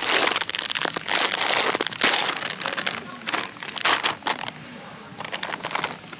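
Bag of potato chips being pulled open and torn, its plastic crinkling and crackling in loud bursts, strongest in the first two seconds and again around four seconds in.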